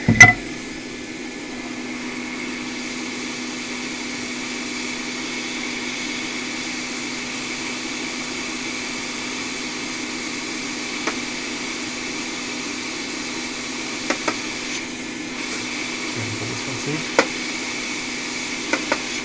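Hot air rework station blowing steadily, a constant whooshing hiss with a low hum, while corroded liquid-damaged components are heated off a MacBook Pro logic board. A few sharp clicks from tweezers touching the board, the loudest right at the start.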